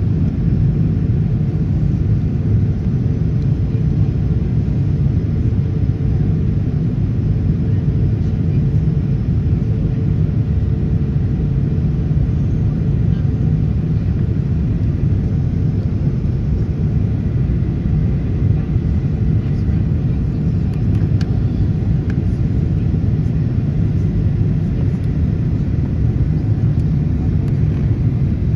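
Steady low rumble of a Ryanair Boeing 737 in flight, heard inside the cabin from a window seat over the wing: engine noise and airflow at an even level throughout.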